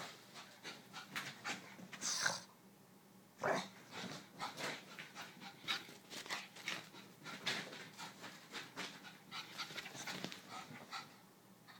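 Boston terrier panting hard, with many quick irregular clicks and scuffs.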